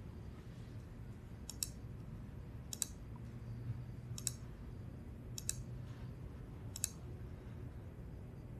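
Computer mouse button clicked five times, about once every second and a quarter. Each click is a quick double snap of press and release, over a faint low hum.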